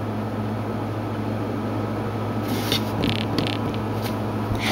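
Steady low hum and hiss of background noise, with a few brief soft rustles about halfway through.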